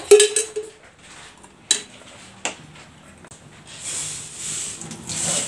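A steel ladle clinks against metal cookware with a short ring, followed by a couple of lighter clicks. About four seconds in, a steady high hiss builds and holds.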